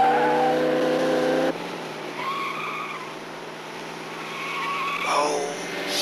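Car engine running at high revs, pitch creeping up, then cut off abruptly about a second and a half in. Tyres squeal and skid several times after it, the sharpest squeal near the end.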